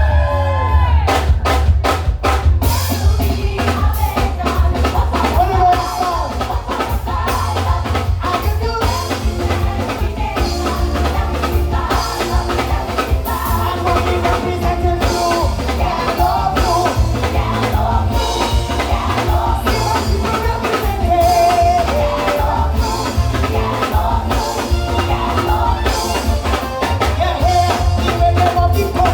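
Live soca music at concert volume: a steady, driving drum beat with heavy bass and singing over it.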